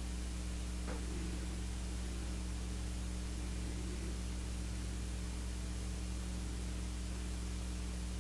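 Steady electrical hum with a constant hiss, the noise floor of the recording; a faint tick about a second in.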